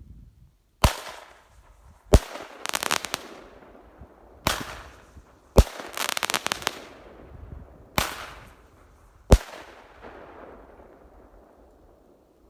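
Pyro Monster 'Gatling' five-shot Roman candle firing: six sharp bangs over about nine seconds as its shots launch and break in the air. Two of the bangs are followed by a second of crackling.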